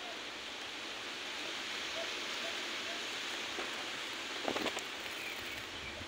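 Steady hiss of falling rain, with a brief rustle about four and a half seconds in.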